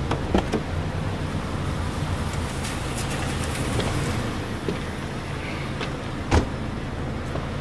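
Car engine idling steadily, with a few sharp clicks and knocks from the car door and hard-soled shoes stepping onto cobblestones; the loudest knock comes about six seconds in.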